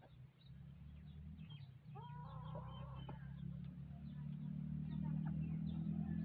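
A low engine hum grows steadily louder as a motor vehicle draws near. Over it come scattered bird chirps and a chicken's short call about two seconds in.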